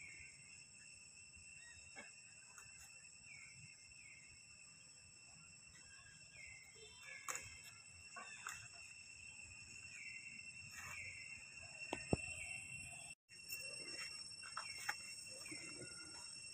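Faint, steady high insect drone with short chirping calls repeating every second or so and scattered light rustles of dry leaves; the sound briefly cuts out about 13 seconds in.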